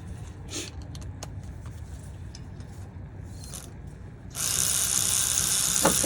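A few light tool clicks, then about four and a half seconds in a loud, steady power tool starts running, spinning out the T30 Torx screw that holds the brake rotor on.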